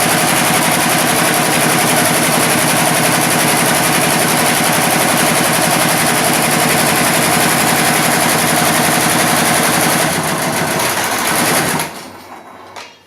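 Computerized embroidery machine running at speed, its needle stitching in a fast, even rhythm. It eases off slightly near the end and stops, followed by a single click.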